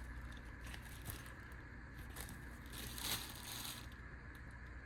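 Packaging and an instruction sheet being handled: a few short bursts of rustling and crinkling, the longest about three seconds in, over a steady low hum.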